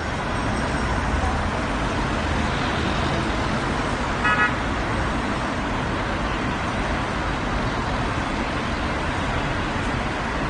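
Steady noise of road traffic, with one short car horn toot about four seconds in.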